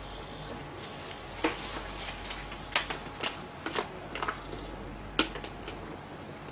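About six sharp, irregular clicks and ticks over a steady faint hiss.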